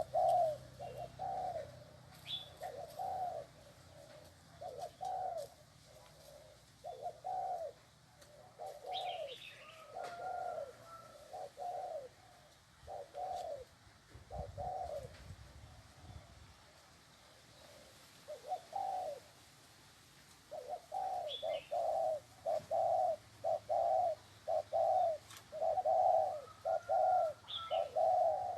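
Spotted dove cooing over and over in short low notes grouped in phrases, with a gap of a few seconds in the middle and a faster, denser run of coos in the last third. A few brief high chirps come in between.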